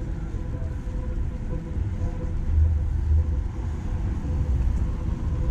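City street traffic: a steady low rumble of passing vehicles, swelling a little a few seconds in, with a faint steady hum above it.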